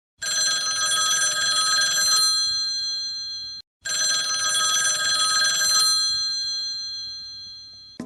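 A bell rung twice: each ring is a rapid trill lasting about two seconds that then rings on and fades, with a short gap between the two rings.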